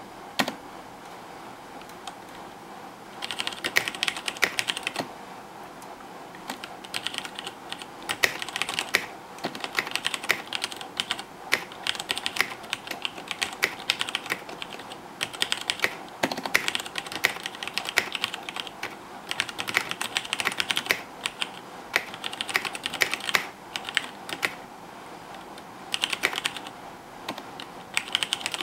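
Typing on a KBC Poker mechanical keyboard with Cherry MX Red switches: rapid key clicks come in runs of a few seconds, broken by short pauses, over a steady faint hiss.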